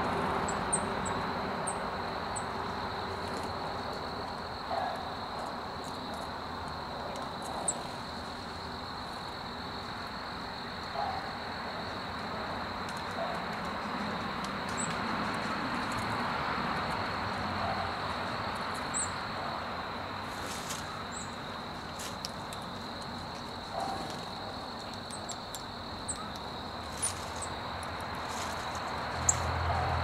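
Outdoor backyard ambience dominated by a steady, high-pitched insect drone, over a low background rumble. Brief high bird chirps come at scattered moments, with a few small clicks, and a vehicle's low hum comes in near the end.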